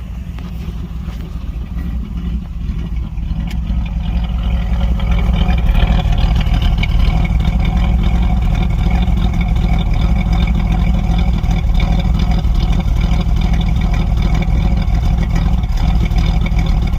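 Gen 1 305 small-block Chevrolet V8 running at idle after a hard start. It grows louder over the first five seconds or so, then holds steady.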